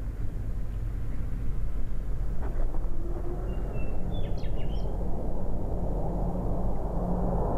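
Low, steady jet noise from twin-engine F/A-18 Hornets flying past in formation, growing louder near the end. A few short, high chirps about four seconds in.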